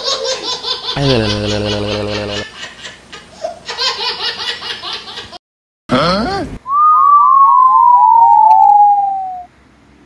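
Cartoon sound effects: a giggling laugh with a falling, sliding tone about a second in, then a string of about eight whistle chirps, each lower than the last.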